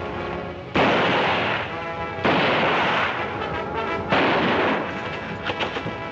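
Three gunshots, about a second and a half apart, each sudden and trailing off over most of a second, over background film-score music.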